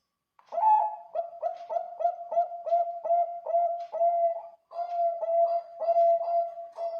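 Perkutut Bangkok, a song-bred zebra dove, singing a fast run of low repeated coos, about three a second, with a short break partway through.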